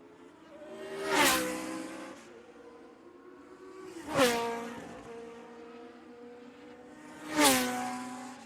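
Formula One cars passing by at speed, three in turn about three seconds apart: each high engine note swells quickly, drops in pitch as the car goes past, and fades away.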